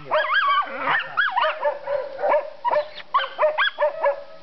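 Young hunting dog baying at a wild boar: a fast, unbroken string of high, yelping barks that rise and fall in pitch, about three or four a second.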